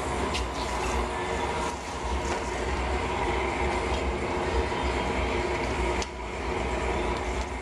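Gas-fired glory hole running steadily while a large glass piece is reheated in it: a continuous rushing noise with a low rumble, and a few faint clicks.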